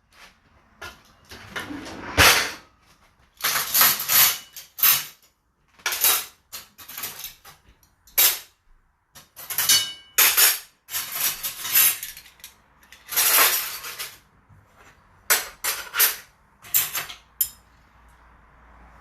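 Dishes and cutlery clinking and clattering as a dishwasher is unloaded: a long run of irregular knocks and rattles as items are lifted out and set down, one with a brief ringing clink about halfway through.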